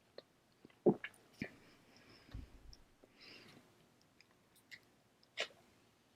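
A person chewing food close to the microphone: faint, scattered wet mouth clicks and smacks, the sharpest about a second in.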